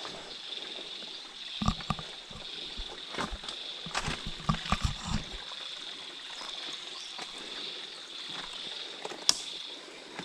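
Footsteps and knocks of a hiker moving over streambed rocks: a cluster of short knocks in the first half and one sharp click near the end. Underneath is a running stream and a steady high-pitched buzz.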